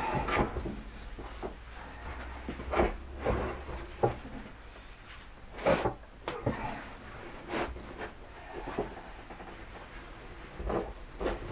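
Irregular knocks and bumps, a second or two apart, as a heavy ZF 5HP18 automatic gearbox is tipped and settled onto its side on wooden blocks.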